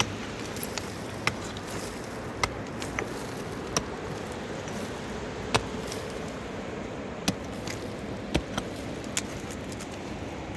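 Steady rushing of a fast-flowing mountain river, with sharp knocks at irregular intervals, roughly one every second.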